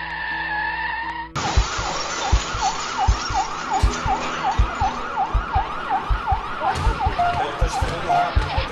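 Emergency siren in a fast yelp, rising and falling about three times a second, cutting in sharply about a second and a half in, with deep thumps beneath it. Before it, a steady held tone.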